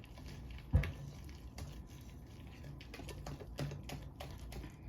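Wire whisk beating pancake batter in a bowl: an irregular clatter of quick clicks as the whisk strikes the bowl, with one heavy thump just under a second in.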